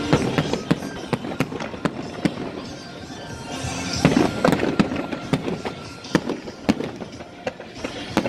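Fireworks display: aerial shells bursting in a rapid, irregular string of sharp bangs and crackles, thickest about four seconds in.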